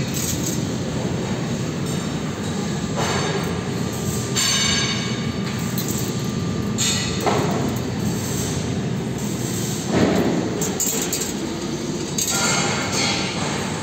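3D CNC wire bending machine running: a steady low mechanical sound with repeated bursts of higher whirring as its servo-driven feed and bending head push and bend the steel wire. The loudest burst comes about ten seconds in.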